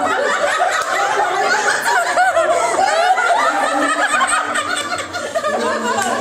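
A group of people laughing together, with several voices overlapping.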